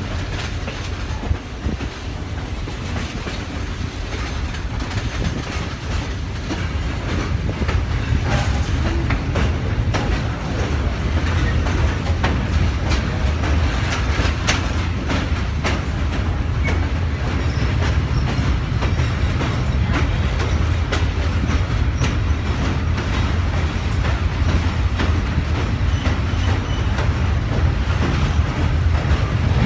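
Passenger train rolling along the track: a steady low rumble with clicks and rattles from the wheels, growing somewhat louder after a few seconds.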